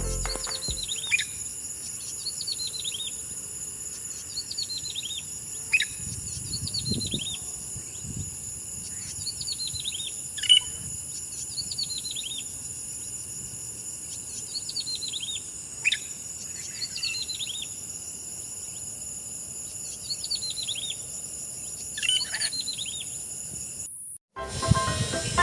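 A bird repeating a short descending trill call every second or two, over a steady high-pitched drone of insects. It all cuts off abruptly about a second before the end.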